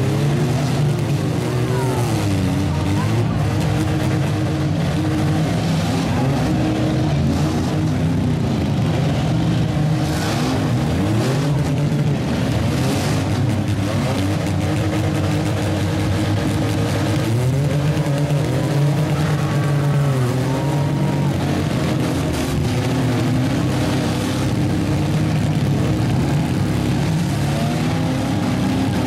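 Several demolition derby trucks, vans and SUVs revving their engines up and down as they manoeuvre and ram one another, with a few sharp metal-on-metal crashes around the middle.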